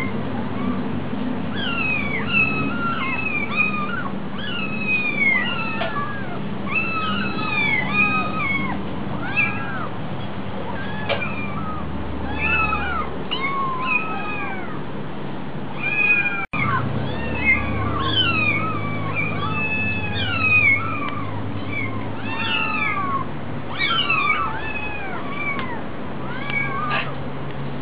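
Several kittens meowing over and over, short high-pitched mews overlapping almost without pause: hungry kittens begging for food.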